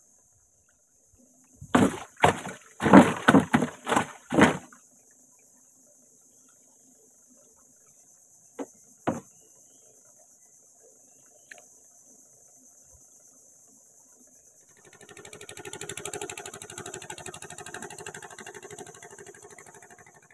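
A run of loud knocks about two seconds in, then two more a few seconds later. From about fifteen seconds in, a small boat engine buzzes with a steady fast pulse.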